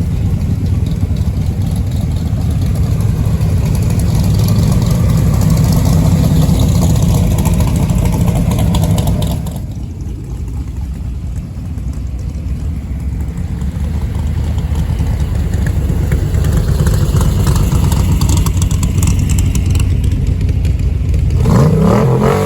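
Classic car engines rumbling as parade cars drive slowly past, easing off about ten seconds in and building again. Near the end one engine revs, rising in pitch.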